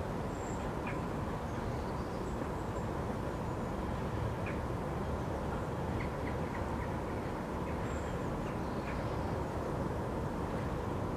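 Steady low outdoor rumble, with faint short bird chirps dotted through it and a few thin high whistles.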